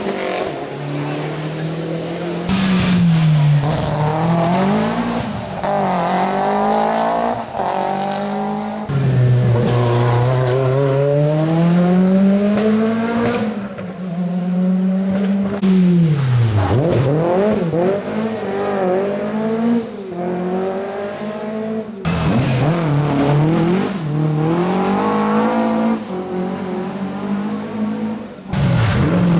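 Rally car engines revving hard, pitch rising and falling again and again as the cars are driven through corners and drifts, with tyre noise. Several separate passes follow one another with abrupt changes in between.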